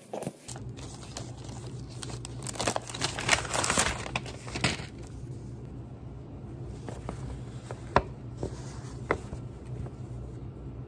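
Sheets of paper rustling and crinkling as they are unfolded and handled, busiest in the first half, then a few single sharp clicks. A steady low hum runs underneath.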